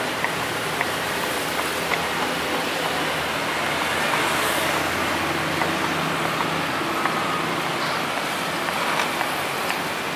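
Steady street traffic noise with an engine hum that swells in the middle. Light, irregular knife taps on a wooden chopping board come through as meat is sliced.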